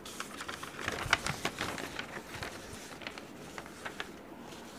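Paper rustling and crackling as a textbook's pages are handled and turned: a cluster of small crackles in the first couple of seconds, then fainter, scattered ticks.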